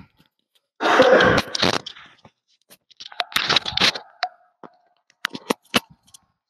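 Clothing rustling and scuffing on the mat as a therapist kneels in behind a cross-legged person and takes hold of his shoulders, followed by a few short sharp clicks a little after five seconds in.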